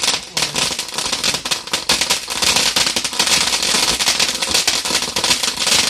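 Ground fountain firework spraying sparks: a dense, continuous crackling hiss.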